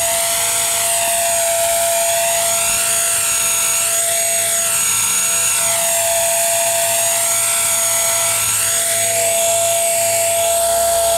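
Blade 300 CFX electric RC helicopter hovering: the steady high whine of its motor and drivetrain over the whir of the rotor blades, held at one constant pitch.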